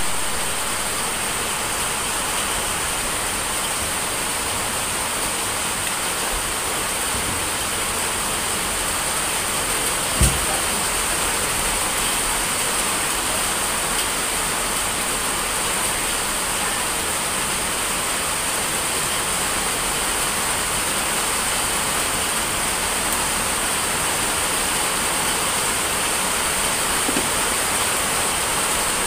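Heavy rain falling, a steady even hiss, with a single knock about ten seconds in.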